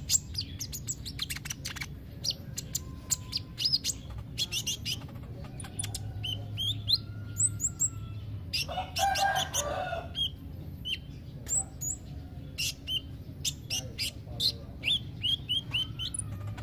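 Van Hasselt's sunbird (kolibri ninja) chirping: many short, high-pitched notes and sharp upward-flicked chips in irregular bursts. A brief harsher, lower call comes about nine seconds in, over a low steady hum.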